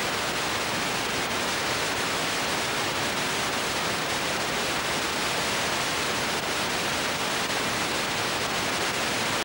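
Television static: a steady, even hiss of white noise that cuts off suddenly at the end.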